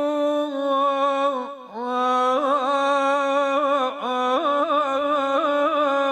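A man chanting an Iraqi mourning lament (na'i) unaccompanied, stretching one vowel into long held notes with wavering ornaments. There is a short break in the note about a second and a half in.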